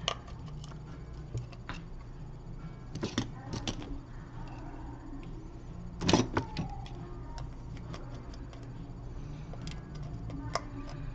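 Scattered light clicks and taps of small repair tools and parts being handled while an iPhone 6 is taken apart. A denser clatter of clicks comes about three seconds in and again about six seconds in, over a steady low hum.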